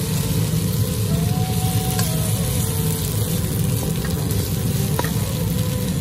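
Chicken strips, bell peppers and onion sizzling steadily in a hot wok as a spatula stirs them. Two light clicks of the spatula against the pan come about two seconds in and near the end.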